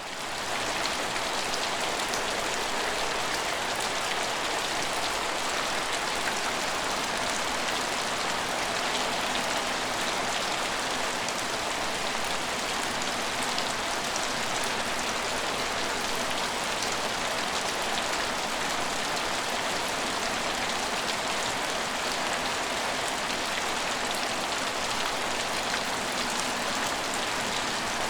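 Rain falling steadily on a train station: an even hiss with scattered drop ticks, swelling up in the first moment and then holding level.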